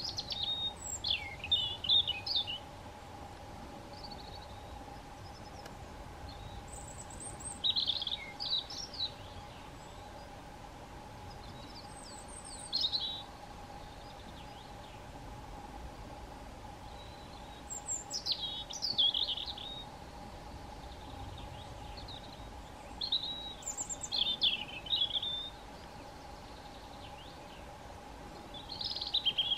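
European robin singing: short, high, warbling phrases of a second or two each, about six of them, separated by pauses of a few seconds.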